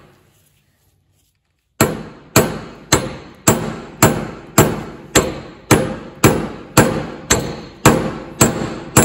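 Hammer blows on an Allis-Chalmers D17 tractor's front wheel hub, driving the seized hub off its spindle. One blow dies away, and after a pause of nearly two seconds comes a steady run of about fourteen ringing metallic strikes, roughly two a second.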